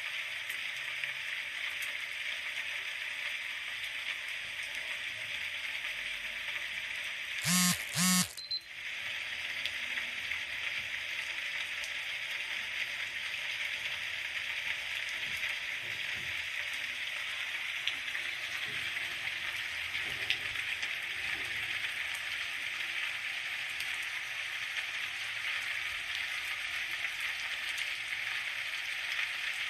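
Steady rain falling, an even hiss. About eight seconds in, two short, loud pitched blasts in quick succession cut through the rain.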